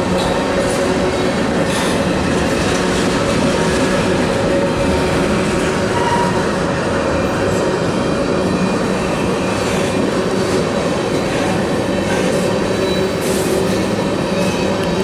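Freight train of tank cars rolling past at close range: a steady, loud rumble of steel wheels on the rails, with thin steady ringing tones held over it.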